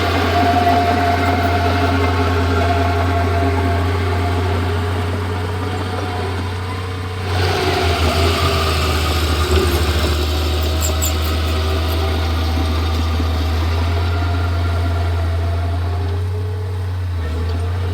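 Komatsu D31P bulldozer's diesel engine running steadily with a deep hum, picking up again after a brief dip about seven seconds in.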